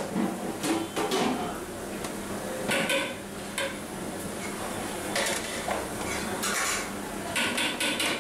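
A long flat metal spatula scraping and knocking against a large metal cooking pot as a big batch of cooked biryani rice is turned over, in about seven uneven strokes.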